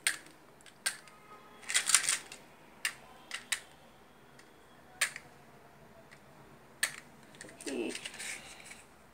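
Matchbox handled and matches struck: scattered sharp clicks, with a short scratchy burst about two seconds in and a longer rough one near the end.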